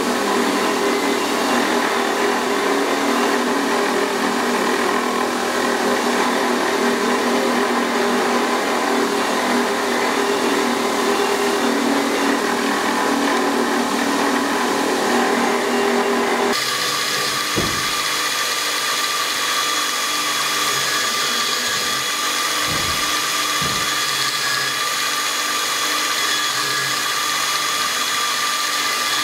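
Belt grinder running with a heat-treated steel Bowie knife blade held against the belt at the contact wheel, giving a steady grinding whine. About halfway through it changes abruptly, losing its lower grinding tone and turning to a higher, thinner whine.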